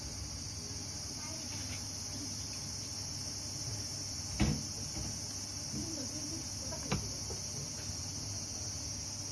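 Insects chirring steadily at a high pitch, with two soft knocks about halfway through and again a couple of seconds later.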